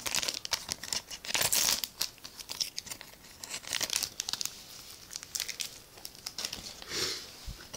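Trading-card booster pack wrapper crinkling and tearing as it is opened by hand, in a string of irregular crackles.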